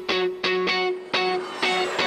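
Music: a guitar picking single notes, about three or four a second, each ringing out and fading over a steady held note.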